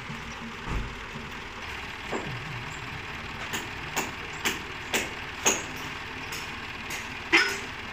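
Dump truck engine running steadily, with several short sharp sounds over it, a quick run of them about half a second apart in the middle.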